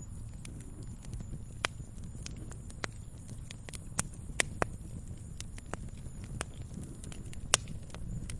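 Wood fire crackling in a fireplace: irregular sharp pops and snaps over a low, steady rumble, with the loudest pops about four and seven and a half seconds in.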